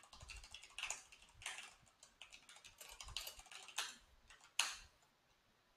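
Faint, irregular keystrokes on a computer keyboard as a command is typed, the sharpest about four and a half seconds in.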